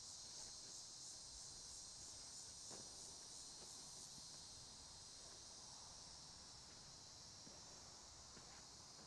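Faint insect chorus, a high-pitched chirring that pulses about four times a second for the first few seconds and then runs steady, with a few faint clicks.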